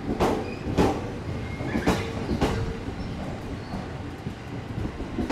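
Wheels of Yokosuka Line E217 series EMU cars clacking over rail joints as the hauled train rolls slowly along the platform. The clacks come in pairs, a bogie's two axles about half a second apart, over a low rolling rumble.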